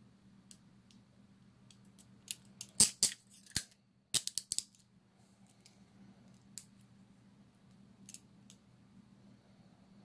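Steel TCH 822 chain-link handcuff worked with its key: a cluster of sharp metallic clicks between about two and five seconds in, with a few faint single clicks before and after.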